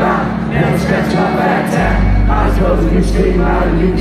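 Loud live concert music heard from within the crowd, with singing over a heavy bass that comes in stronger about two seconds in.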